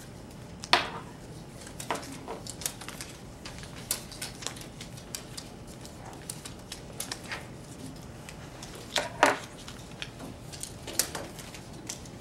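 Scattered light clicks, taps and rustles from people sorting cards at tables, with two louder knocks, about a second in and about nine seconds in.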